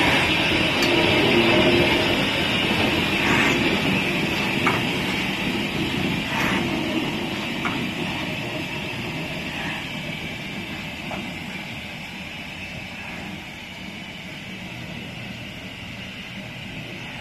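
BR Standard Class 4MT 2-6-4 tank steam locomotive running along the platform, with a steady hiss of escaping steam and a few sharp clanks. It fades steadily as the engine draws away.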